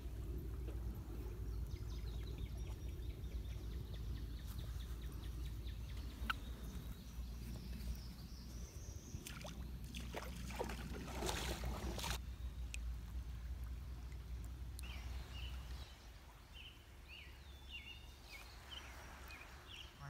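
Steady low outdoor rumble, with rustling and scraping around the middle as a hand picks up a toad from the sand. There are a few short high chirps near the end.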